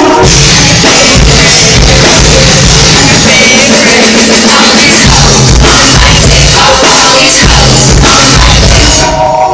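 Very loud amplified music over a venue PA during a sound check: heavy bass and drums with a voice singing, briefly dipping near the end.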